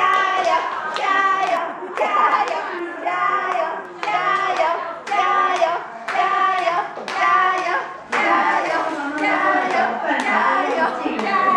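Singing voices carrying a melody, with hand claps.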